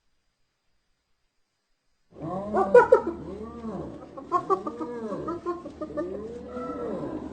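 Spotted hyena laughing: a string of pitched calls that each rise and fall, about one every two-thirds of a second, starting about two seconds in, loudest at the start of the run.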